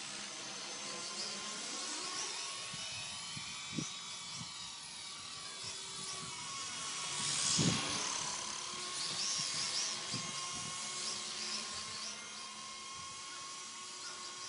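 WLtoys V912 RC helicopter in flight: its small electric motor whines and the rotor spins, the pitch rising and falling as the throttle changes, loudest about halfway through. A few light knocks come in between.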